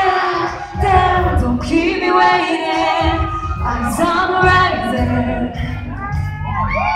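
Female pop vocals sung live over an amplified electronic backing track with a pulsing bass beat. Near the end, a few high whoops from the crowd come in.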